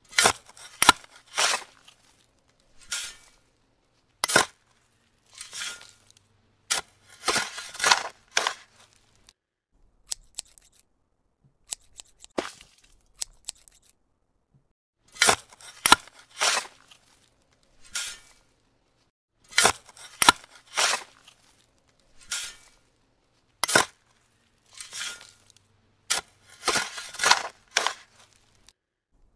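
A series of short, scratchy crackles and rasps from working stripped copper wire close to the microphone, each under a second long, coming irregularly with quiet gaps between.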